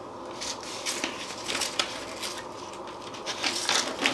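A webbing tank strap with a metal buckle being handled and wrapped around steel double tanks: scattered small metal clinks and rustles, with a quick cluster of clinks near the end.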